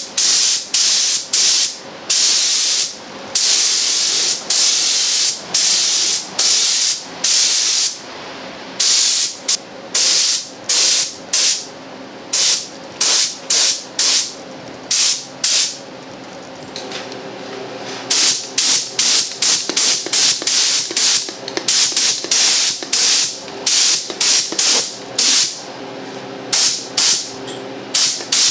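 Compressed-air gravity-feed paint spray gun spraying black paint in repeated bursts of hiss, a few lasting a second or more and many much shorter, with short pauses between trigger pulls.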